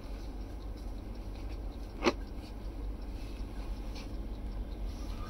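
Soft rustling of a pure viscose georgette saree being unfolded and spread out by hand on a cloth sheet, with one sharp tap about two seconds in, over a low steady hum.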